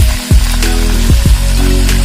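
Background music with a steady beat: a deep, falling drum stroke about twice a second over held bass notes.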